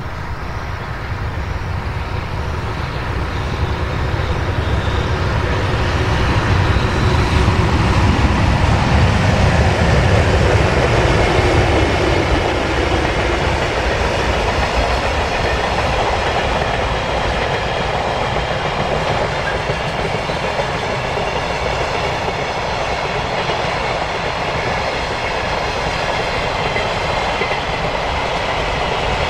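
A freight train passing close by: the locomotive's low rumble swells to its loudest about eight to ten seconds in, then a long string of container wagons rolls steadily past with wheel-on-rail noise.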